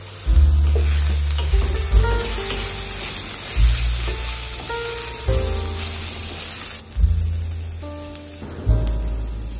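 Water clover greens sizzling as they are stir-fried in an aluminium kadai with a wooden spatula; the sizzle drops away about two-thirds of the way through. Background music with a steady bass line plays throughout.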